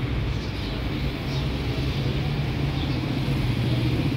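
City street traffic: a steady low hum of car engines on the road alongside.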